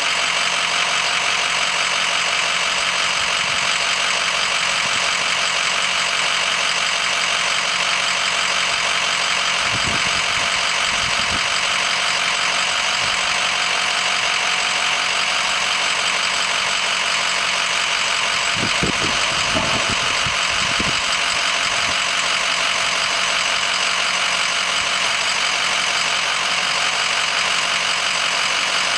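Pickup tow truck's engine idling steadily as its motorcycle lift raises the bike onto the bed, with a few soft low thumps about ten seconds in and again around nineteen to twenty-one seconds in.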